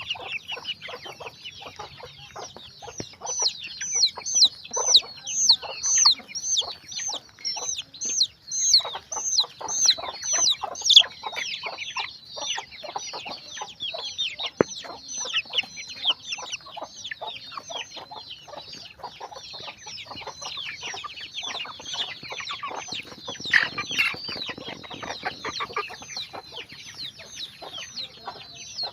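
A flock of free-range chickens calling and clucking, a dense run of short high calls repeated several times a second, loudest in the first half.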